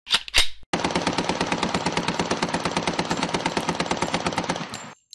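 Two sharp cracks, then a long burst of rapid automatic gunfire lasting about four seconds that cuts off suddenly near the end.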